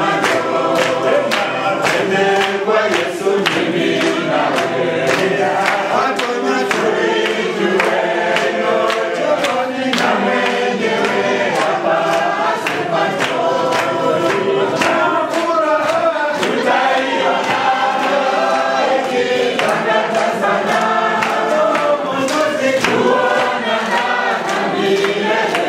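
A large group singing together, with hands clapping along in a regular beat.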